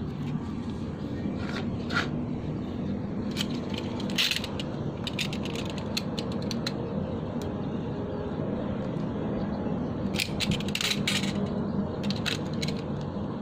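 Clusters of sharp clicks and snips from a charger cable and small hand tools being worked on, in three bursts, over a steady low hum.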